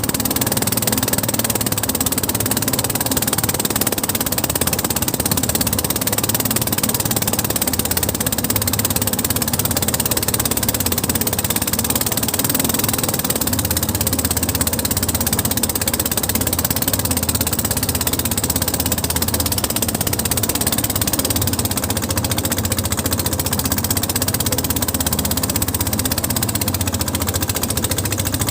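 Small boat's engine running steadily at a constant speed.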